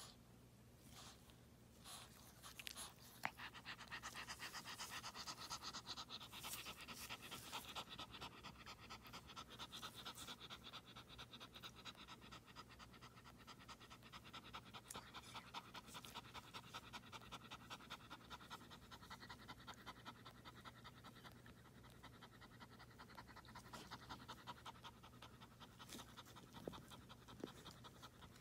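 Yorkshire terrier bitch in labour panting rapidly and faintly in quick, shallow breaths. The panting starts about three seconds in and grows softer later on. A single click comes just before it starts.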